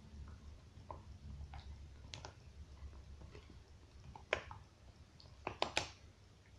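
A dog gnawing on a bone: scattered faint clicks of teeth on bone, a sharper crack about four seconds in and a quick run of three near the end.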